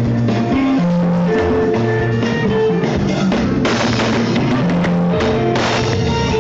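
A live band playing Zimbabwean dendera music: electric guitars and bass guitar over a drum kit, in a steady, continuous groove.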